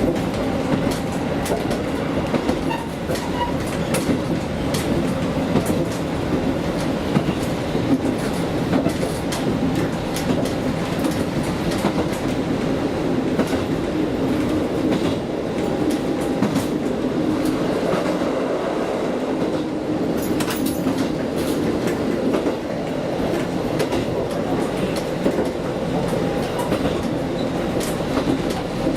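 KiHa diesel railcar running along the line: a steady running rumble with an engine drone and the clickety-clack of wheels over rail joints.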